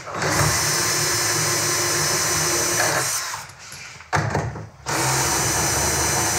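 Cordless battery drill running in two long runs of about three seconds each, with a few short bursts in the gap about three seconds in.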